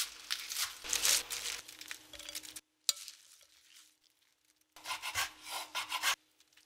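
A kitchen knife chopping vegetables on a wooden cutting board, with spinach leaves rustling as they are dropped into a ceramic bowl. The sound comes in three short runs of quick strokes, each cut off abruptly.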